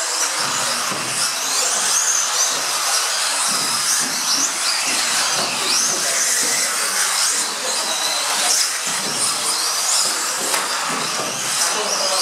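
Several electric RC off-road cars racing together, their motors whining high and constantly rising and falling in pitch as they accelerate and brake, over a steady rushing noise.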